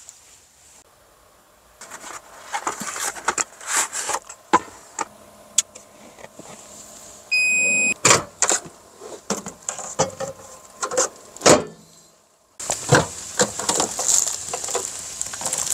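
Cooking clatter in a small space: dishes and utensils knocking, then a microwave oven's single beep about seven seconds in as its timer runs out, followed by the door being opened. After a brief gap near the end, a steady sizzling hiss of hot food.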